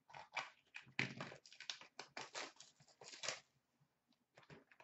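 Foil hockey card pack wrapper being torn open and crinkled by hand. It makes a quick run of short, irregular crackling rustles that die away about three and a half seconds in.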